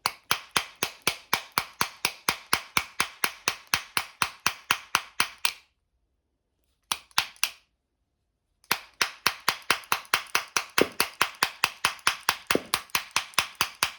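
Skate T-tool tapping a truck axle in through tightly fitting bushings: a steady run of sharp taps about four a second, breaking off about halfway through except for a few taps, then resuming.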